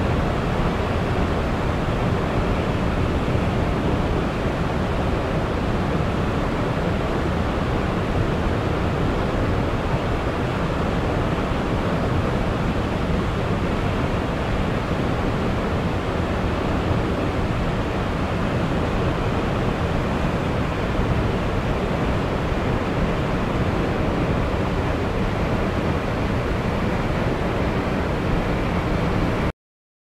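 Waterfall rushing, a steady, even roar of falling water that cuts off abruptly just before the end.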